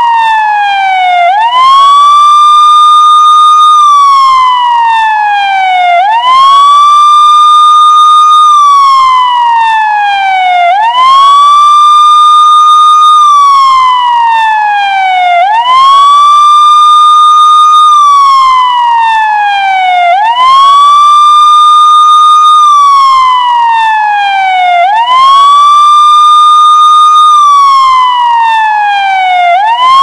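Police siren sounding a continuous wail: each cycle rises quickly, holds a high steady tone for about two seconds, then glides slowly down, repeating about every four and a half seconds, seven rises in all.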